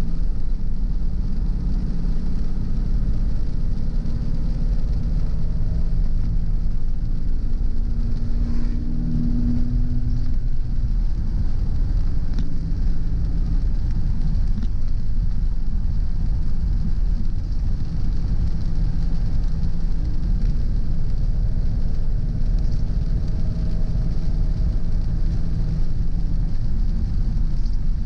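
Car driving along a road: steady low rumble of road and engine noise, with a brief rise in the engine note about nine seconds in.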